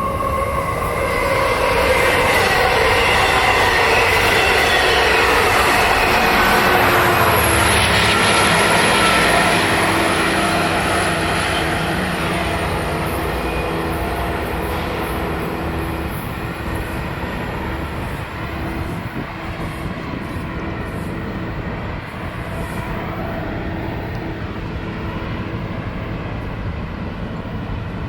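Long Island Rail Road passenger train running through the station, loudest for the first ten seconds or so and then fading as it moves off, with a thin high whine that slowly falls in pitch.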